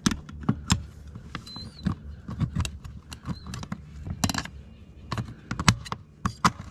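Metal ratchet strap buckle and hardware being handled, giving sharp, irregular clicks and clinks, a few each second.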